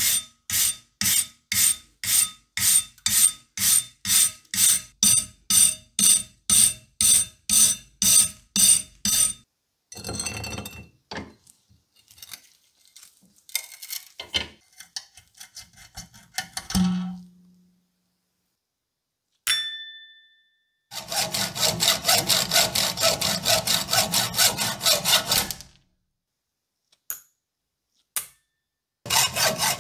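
Wire brush scrubbing rust off a steel cleaver blade in steady back-and-forth strokes, about two a second, for the first nine seconds. Then come scattered scraping, a low thud, a short metallic ring, a few seconds of rapid scraping and a couple of small clinks. Near the end a hacksaw starts cutting across the rusty blade.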